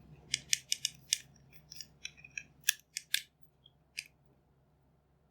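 Small plastic parts of a replacement headband for Bose QC-15 headphones clicking and tapping as the bottom cover is fitted on. It is a quick, uneven run of sharp clicks lasting about four seconds, then it stops.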